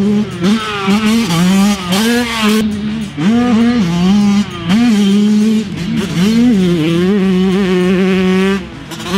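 A Yamaha YZ125's 125cc single-cylinder two-stroke engine revving high and dropping back again and again as the rider works the throttle and shifts under load. It holds a steady high pitch for about two seconds near the end, then falls off.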